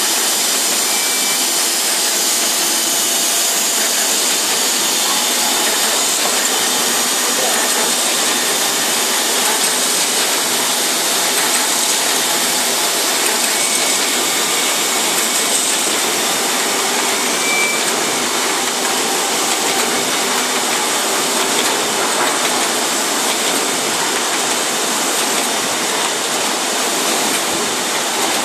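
Paper-finishing machines running: a loud, steady rushing hiss with no clear rhythm, typical of the air blowers and vacuum pumps that feed sheets on folding and booklet-making lines.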